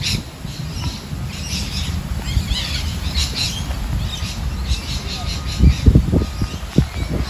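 Birds chirping and squawking outdoors over a steady low rumble of wind on the microphone, with a few loud low thumps of wind buffeting about five to seven seconds in.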